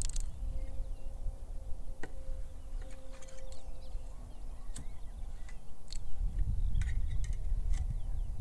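Wind rumbling on the microphone, stronger in the second half, with a scatter of sharp clicks and light knocks as a backpacking gas stove and its cooking cup are handled and fitted together. Faint birdsong behind.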